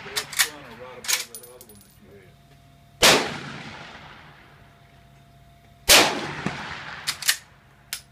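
Two rifle shots from a Finnish M39 Mosin-Nagant bolt-action rifle in 7.62×54R, about three seconds apart, each ringing out and fading slowly. Sharp metallic clacks of the bolt being worked open and shut come near the start and again after the second shot.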